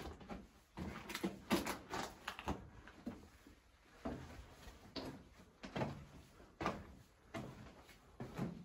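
Footsteps crunching on loose rock and gravel rubble in a narrow mine tunnel, about one step a second, unevenly spaced.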